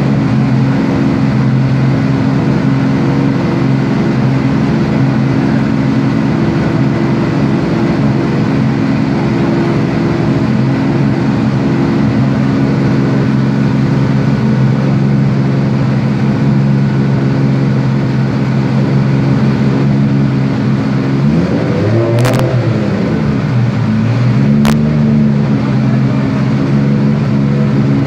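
Turbocharged drift car engine running under load on a chassis dyno, held at a steady pitch for most of the time. About three quarters of the way through, the pitch drops and climbs back, with two sharp cracks a couple of seconds apart.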